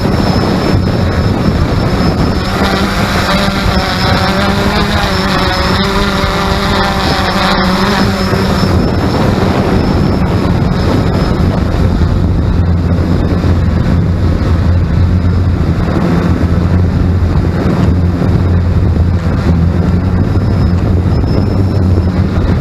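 XK X380 quadcopter drone's motors and propellers running with a steady low hum. Higher tones join in from about two to eight seconds in. The title calls the noise strange.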